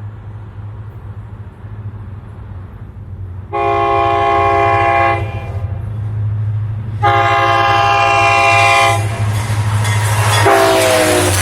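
Diesel freight locomotive sounding its air horn for a grade crossing: two long blasts over the steady drone of the engine, then a third blast about ten seconds in that drops in pitch as wheel and rail noise grows.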